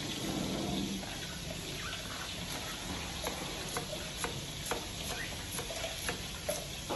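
Kitchen knife chopping shallots on a plastic cutting board: sharp taps of the blade on the board, about twice a second through the middle and latter part, over a steady low hiss.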